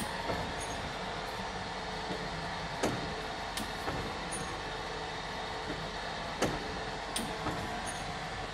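APT depositor running: a steady mechanical hum from the drive and chain conveyor, with a pair of sharp clacks that repeats about every three and a half seconds as the machine cycles.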